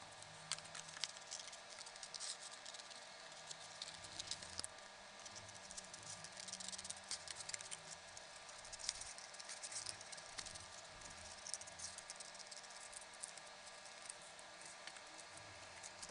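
Scissors cutting through thin cardboard: a long run of short, irregular snips and rustles as the blades work around a traced shape.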